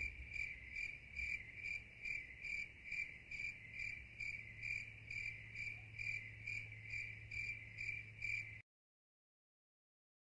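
Evenly repeated high-pitched chirping, about two chirps a second, over a faint low steady hum; it cuts off suddenly about eight and a half seconds in.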